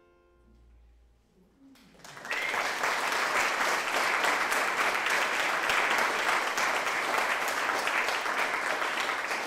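After a short hush, an audience breaks into applause about two seconds in, many hands clapping steadily.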